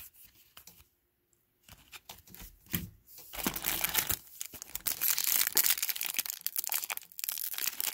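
Foil trading-card pack wrappers crinkling as a pack is pulled from the box, a dense crackle starting about three seconds in, after a few faint clicks of cards being handled.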